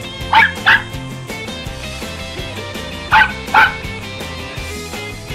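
Miniature dachshund barking: two quick pairs of sharp, high-pitched yaps about three seconds apart, over background rock music with guitar.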